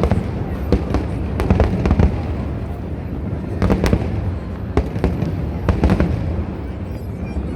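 Aerial fireworks display: a string of sharp bangs every second or so, some in quick clusters, over a continuous low rumble of bursts.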